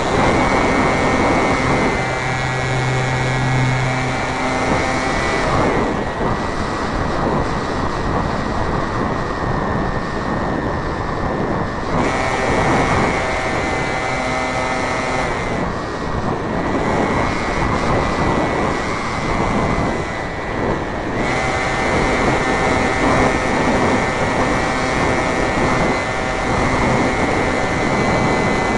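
Motor and propeller of a radio-controlled model Cessna Cardinal in flight, a steady whine over rushing wind from on board. The whine steps down about six seconds in and again around fifteen seconds, and comes back up around twelve and twenty-one seconds, as the throttle is eased back and opened again.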